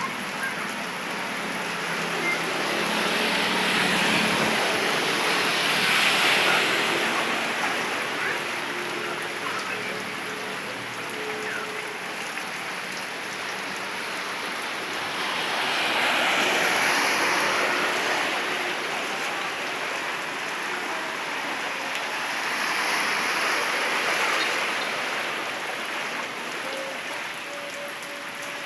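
Heavy rain falling steadily on a flooded street, with motorbikes riding through the floodwater; their engines and the wash of water swell up and fade about three times.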